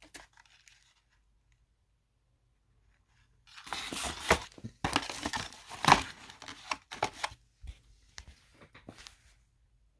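Packaging being handled: irregular rustling and crinkling with scattered clicks and knocks, starting about three and a half seconds in and lasting about six seconds.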